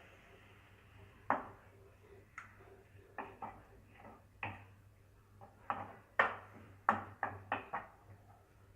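A utensil knocking and clinking against a cooking pan while shredded carrot is stirred in milk: a series of irregular sharp knocks, more frequent in the second half.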